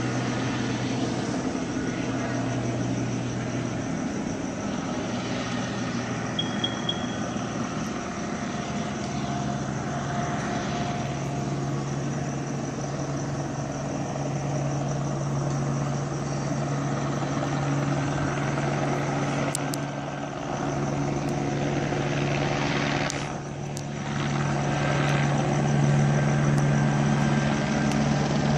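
Police helicopter flying overhead: a steady drone of rotor and turbine engine with a low hum, growing a little louder near the end.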